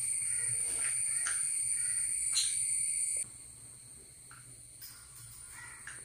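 A few faint, short calls from pet conures while they eat, over a steady high whine and a low hum. The background drops quieter suddenly about three seconds in.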